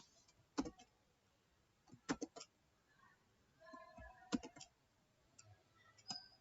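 Scattered computer mouse and keyboard clicks, some single and some in quick runs of two or three, from someone working at a computer.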